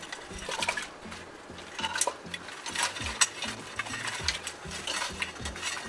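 Signal crayfish tipped from a stainless steel colander into a cooking pot and pushed along with a plastic spatula: an irregular clatter of shells clicking and scraping on the metal.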